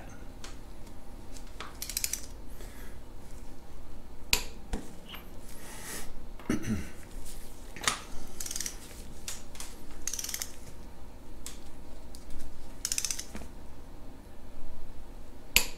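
A torque wrench ratcheting in short spells of rapid clicks, with sharp single metallic clicks between them, as cylinder head nuts are tightened in a first pass to 60 foot-pounds.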